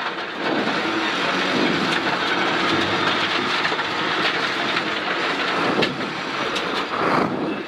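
Inside a rally car's cabin at speed on a gravel road: loud engine and tyre noise with a dense gravel rumble, and sharp clicks of stones striking the car's underside.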